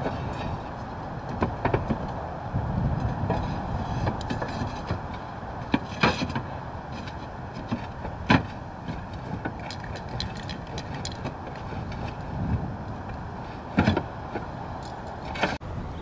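Clay roof tiles knocking and clinking against each other as a tile is handled and set into place by hand, a scattering of sharp knocks over steady background noise.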